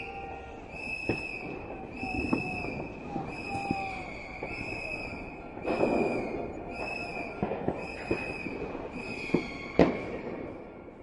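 Soccer stadium crowd noise with a high-pitched tone, from a horn or whistle, sounded in repeated blasts about once a second. Scattered sharp bangs are heard at a few points, the loudest near the end, and the crowd fades out in the last second or two.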